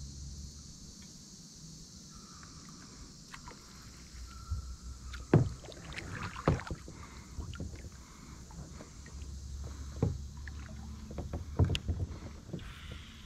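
Scattered knocks and thumps from a fishing kayak as it is swung around on the water, the loudest about five and a half seconds in and again near the end.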